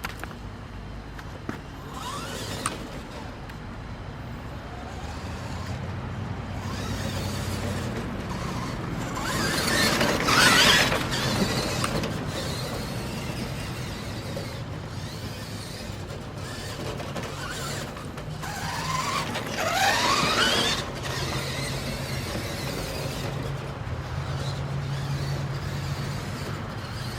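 Bicycle making a strange scratching, squeaking noise, with two louder squeals rising in pitch about ten and twenty seconds in.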